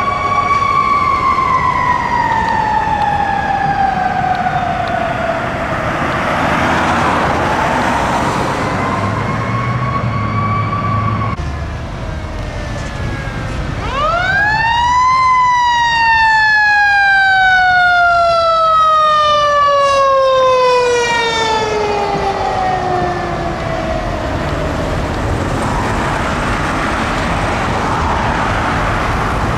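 Fire engine sirens wailing. A long wail falls and slowly rises again; then, about halfway through, a siren winds up sharply and falls away slowly over several seconds. A low engine rumble from the passing fire trucks runs beneath.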